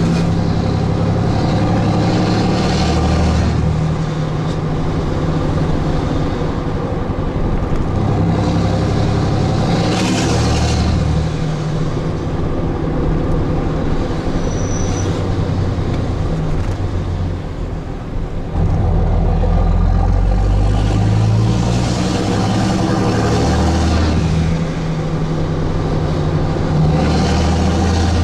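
A 6.7L Cummins turbo-diesel straight-six, heard from inside the cab through a straight-piped 5-inch side-exit exhaust, pulling through the gears of a six-speed manual. Its pitch climbs under load and drops at each of several shifts, with a short dip and a fresh pull about two-thirds of the way through. The turbo is tuned for an older 5.9 Cummins-style sound.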